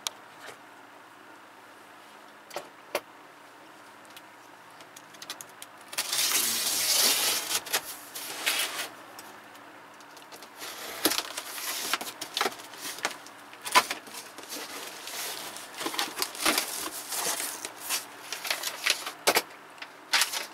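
Handling noises: two small clicks, then a loud rustle and scrape about six seconds in, followed by scattered knocks and shorter rustles as things are moved about.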